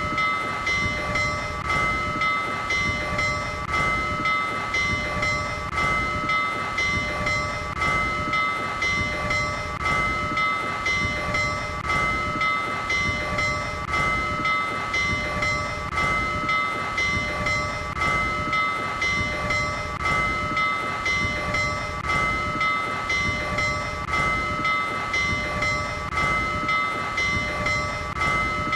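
Union Pacific 844 steam locomotive's bell ringing steadily, an even strike a little more than once a second, each ring lingering into the next.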